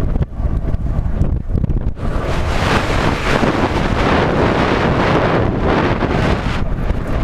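Wind buffeting a helmet-mounted camera's microphone on a galloping horse, turning into a harsh, full rush about two seconds in.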